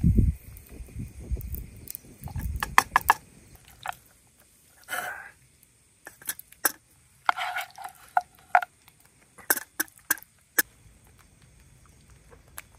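Scattered clinks, knocks and short scrapes of a serving spoon against a cooking pot and plates as cooked rice is dished out, with a low rumble of handling in the first few seconds.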